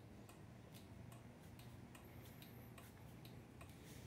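Turn-signal flasher relay on a Massimo MB 200 mini bike ticking faintly in a steady, even rhythm as the blinkers flash, a sign that the newly wired signals are working.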